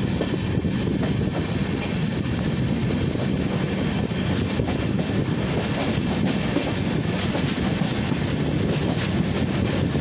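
Passenger train running along the track, heard from an open coach doorway: a steady low rumble of wheels on the rails, with a few faint clicks in the second half.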